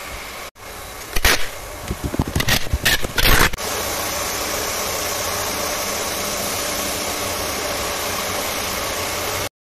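Irregular knocks and rustling from handling, then a steady mechanical hum with faint steady whines, fairly loud, which cuts off abruptly near the end.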